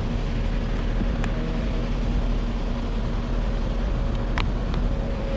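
Steady low rumble with a faint hum, and a few faint short clicks of a locksmith's lockout tools working at a locked car door.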